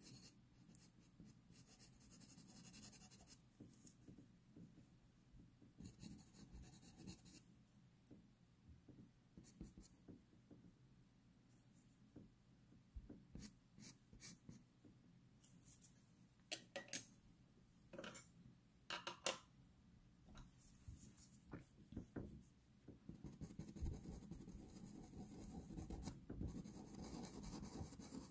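Pastel pencils scratching faintly across textured pastel paper in bursts of short hatching strokes, with pauses between. Near the middle comes a run of quick, sharper strokes, and the densest stroking is near the end.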